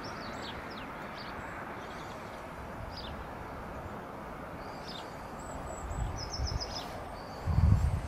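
Small birds singing, with several short high chirps and a quick trill of about five notes some six seconds in, over a steady background hiss. Near the end, wind gusts buffet the microphone with a loud, jagged low rumble.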